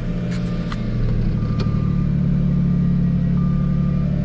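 Jaguar S-Type's 3.0 V6 engine running steadily as the car sets off on a test drive, growing a little louder about a second in. A few faint clicks and a faint high tone that comes and goes are heard over it.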